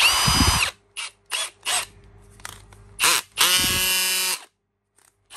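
Milwaukee 2701 18V brushless cordless drill-driver run free in bursts on its trigger. A short spin-up at the start with a rising whine, a few quick blips, then a run of about a second that winds up to a steady whine and stops.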